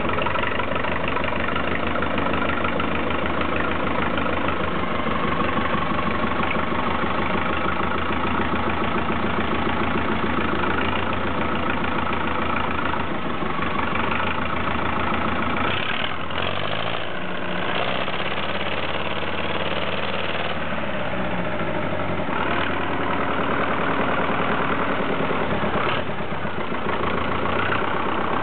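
Someca SOM 750 tractor engine running at idle, revved up and back down about halfway through, with a few sharp pops: the engine is backfiring.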